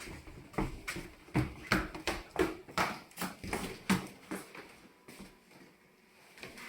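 A run of irregular knocks and thumps in a small room, about two or three a second, dying away about four and a half seconds in.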